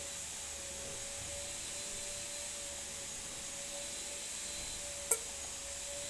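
Steady hum at one pitch over a soft hiss, with a single sharp click about five seconds in.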